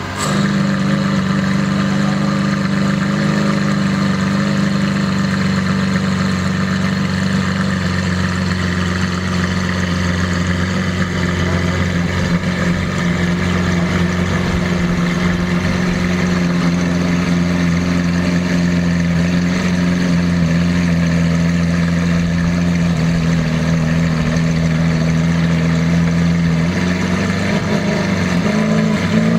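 Lamborghini Aventador LP750-4 SV's V12 engine idling steadily, a low, even drone whose note shifts slightly near the end.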